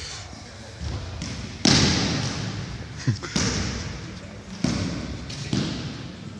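Basketballs bouncing on a hardwood gym floor: about five hard thuds, the loudest a little under two seconds in, each ringing on in the gym's echo.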